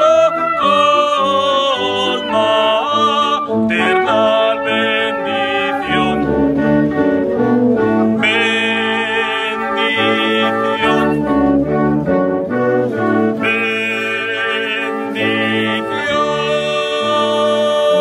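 Brass band playing a slow Marian hymn in long held chords, with singing voices over it.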